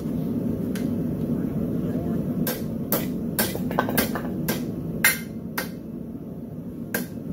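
Blacksmith's hammer striking steel on an anvil, about ten sharp ringing blows at an uneven pace, about two a second, beginning a couple of seconds in. A steady low rumble runs underneath.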